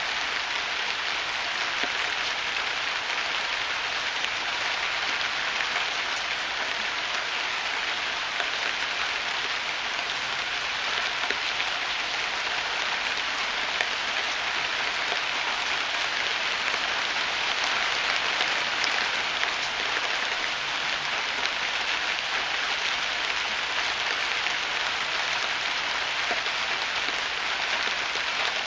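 Heavy rain pouring steadily on hard surfaces, a dense even hiss with no thunder.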